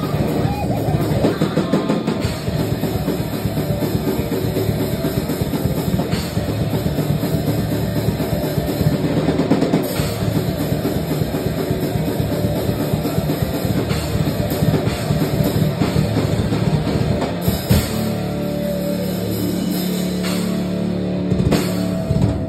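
Live heavy metal band playing loud and fast: a pounding drum kit under electric guitars and bass. About eighteen seconds in, the drumming thins out and the band holds a ringing low chord.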